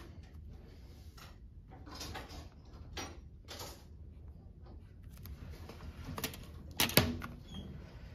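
Pencil scratching across drafting paper in short ruled strokes. Near the end comes a sharp clack, as a plastic drafting triangle is set down against the straightedge.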